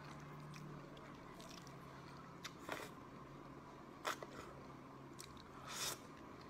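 A person eating close to the microphone: biting and chewing, with a few short crunchy, smacking sounds, over a faint steady low hum.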